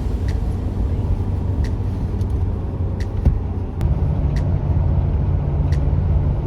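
A motor vehicle on the move: a steady low rumble of engine and road noise, with a faint short click about every second and a half.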